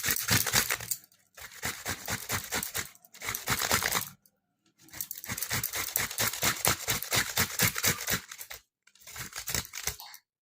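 Boiled amla (Indian gooseberries) being rubbed on a hand grater: quick rasping strokes in about five runs with short pauses between them.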